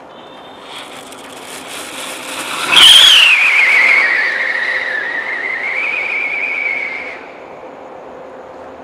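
Sunrise whistling rocket firework: the fuse fizzes, then about three seconds in the rocket launches with a sudden rush and a loud whistle. The whistle starts high, drops in pitch and wavers as the rocket climbs, then cuts off a little past the middle.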